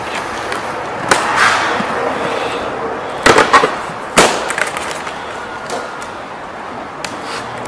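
Hands working at a cardboard outboard-motor box and its plastic packing strap: rustling with several sharp snaps, the loudest a quick cluster about three and a half seconds in and one more just after four seconds.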